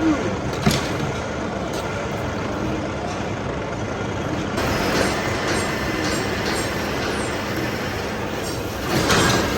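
Steady running noise of heavy workshop machinery, with a sharp metallic knock about a second in and a louder surge near the end.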